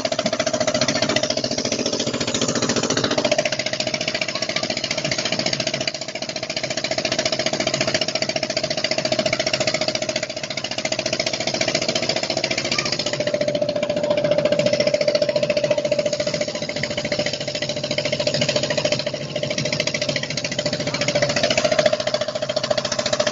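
Small boat engine on a long-tail propeller shaft running steadily, a hum with a fast, even chatter.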